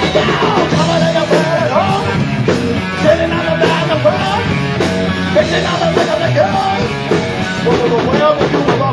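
Loud live funk-metal band playing: drum kit and electric guitars, with a singer at the microphone.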